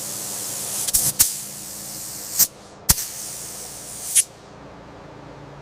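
Rust converter being sprayed onto a test patch of bare, rusted van body metal: a long hissing spray, then a few short bursts that stop about four seconds in.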